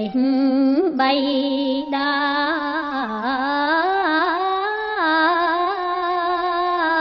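A woman singing Khmer smot, Buddhist verse chanted in long held notes that bend and waver in slow ornamented glides, with a new phrase starting about a second in.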